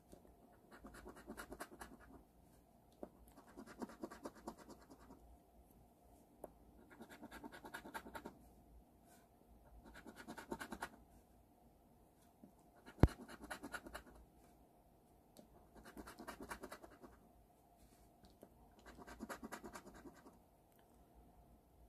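A coin scratching the latex coating off a scratch-off lottery ticket in short bursts of rubbing, about seven bursts with brief pauses between them. A single sharp tap near the middle is the loudest sound.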